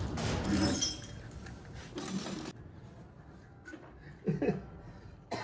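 Metal tools and engine parts clinking and being handled in short, separate bursts, with a sharp click near the end.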